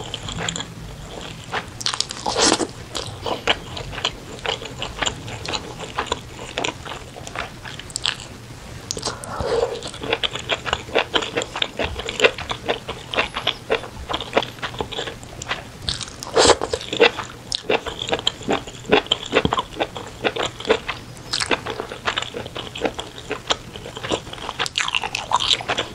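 Close-miked ASMR eating sounds: steady chewing and biting of saucy spicy chicken, with many sharp, irregular crunches and clicks.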